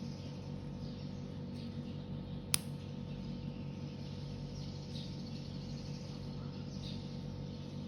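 Faint handling noises, likely toys or their packaging being moved, over a steady low electrical hum, with one sharp click about two and a half seconds in.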